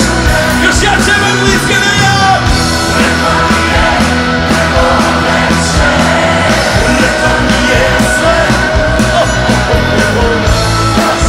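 Rock band playing live at full volume, with a male lead singer singing and yelling into the microphone over a steady beat.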